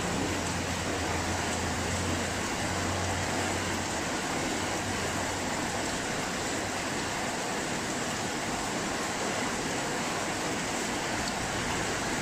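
Heavy rain falling steadily in a dense, even hiss. A low hum is underneath at first and fades out about three seconds in.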